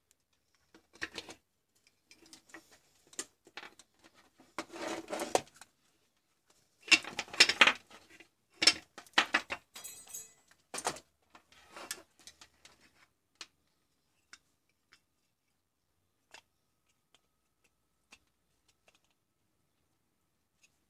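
Handling noise of a plug-in charger's plastic case, its transformer and the multimeter test leads being moved about and set down: a run of clicks, light knocks, rattles and rustles, busiest in the middle, then a few single clicks spaced apart near the end.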